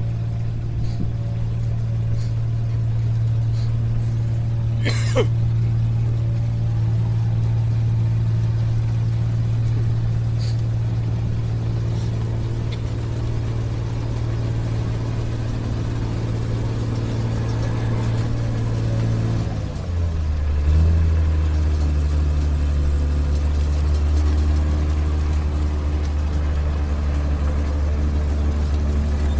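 Engine of a tracked rice combine harvester running steadily as the machine drives. A little past two-thirds of the way in, the engine note drops to a lower pitch and then runs steady and louder.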